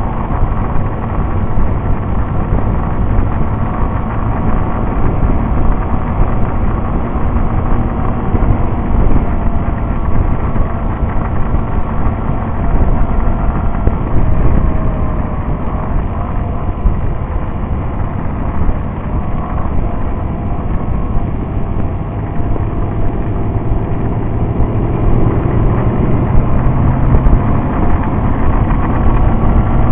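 Motorcycle engine running steadily at road speed, mixed with heavy wind buffeting on a bike-mounted camera's microphone.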